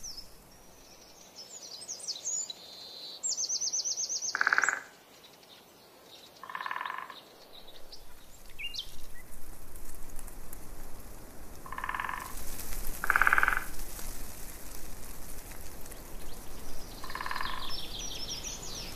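Frogs croaking in short pulsed calls, each about half a second long, five times at irregular intervals. Birds chirp and trill high above them.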